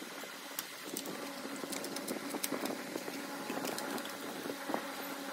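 Light clicks and taps of a cut cardboard piece being picked up and handled on a workbench, over a steady low hum.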